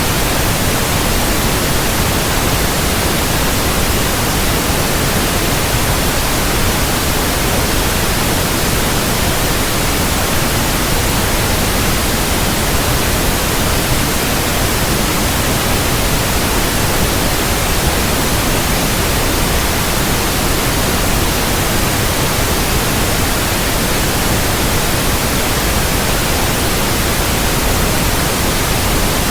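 Steady generated white noise: an even, unchanging hiss spread across all pitches, from deep lows to high hiss, with no breaks or changes.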